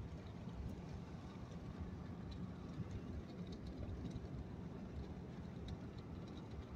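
Steady road and engine noise inside a moving vehicle's cabin: a low rumble with a few faint high ticks.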